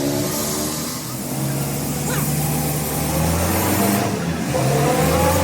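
A vehicle engine running steadily, its pitch rising near the end as it revs up.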